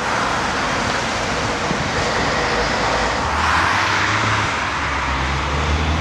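Road traffic: cars passing on a multi-lane city street, with tyre noise swelling about three and a half seconds in and a low engine hum from about three seconds on.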